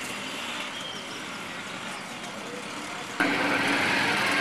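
Street traffic noise with vehicle engines running. About three seconds in it jumps suddenly louder, with a steady engine sound close by.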